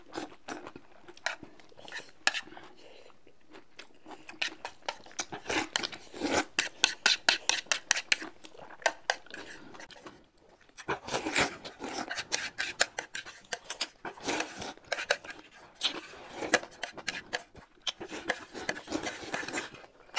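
Close-up eating sounds: slurping noodles and chewing, with chopsticks clicking against plates, in repeated bursts of quick wet clicks separated by short quieter gaps.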